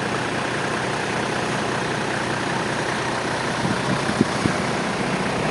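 4x4 vehicle engine running steadily, with a few short knocks about four seconds in.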